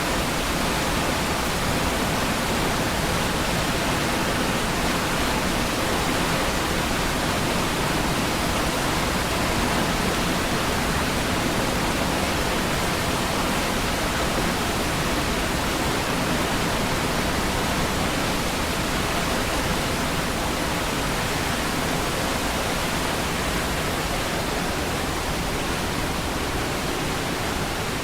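Niagara Falls: a massive waterfall's powerful rush of water, a steady, unbroken roar of falling water with no changes.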